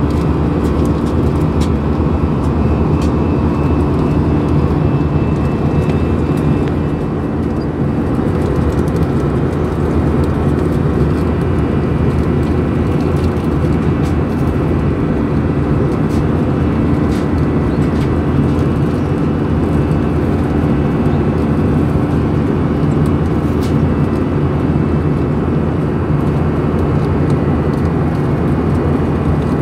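Airbus A319 airliner heard from inside the cabin beside the wing: a loud, steady drone of the turbofan engines and rushing air, with a few faint steady tones running through it.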